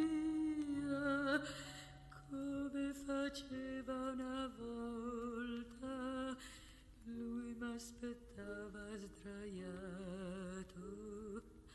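A recorded song: a woman singing long held notes with a wide vibrato, her phrases gliding up and down. Louder in the first second or so, then softer.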